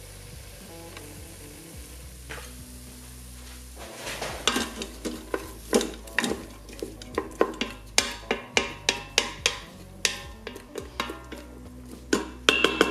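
Wooden spatula scraping and knocking against the stainless-steel inner pot of an Instant Pot, stirring onion, garlic and sage as they sauté over a low sizzle. The stirring starts about four seconds in and goes in quick strokes, about two to three a second.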